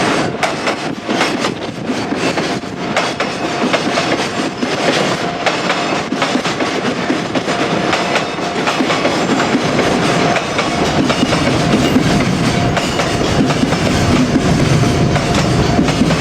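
Container freight train hauled by an ED76 electric locomotive passing close by, its wheels clattering over the rail joints in a steady rumble that grows a little louder near the end.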